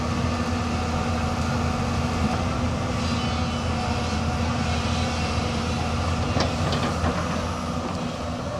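Hyundai 215L crawler excavator's diesel engine and hydraulics running steadily while the upper body swings round, with a couple of faint clanks about six and a half seconds in.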